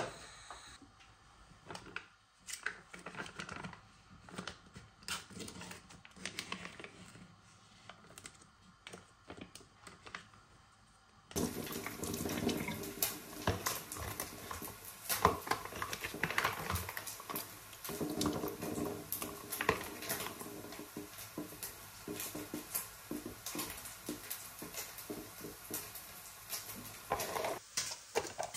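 Faint scattered clicks and taps of kitchen handling for about the first eleven seconds, then water suddenly starts running and splashing into a stainless steel sink, with clinks of a metal mesh strainer as mini mozzarella balls are drained in it.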